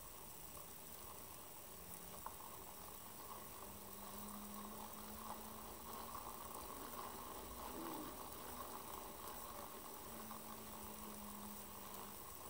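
NEMA17 stepper motor driving a 3D-printed 50:1 compound planetary gearbox, turning it slowly. A faint low hum that holds one pitch, then steps to another several times as the speed changes, with a light whir from the plastic gears.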